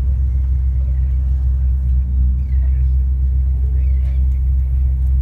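Steady low rumble aboard a harbour tour ferry under way, its engines running at cruising speed.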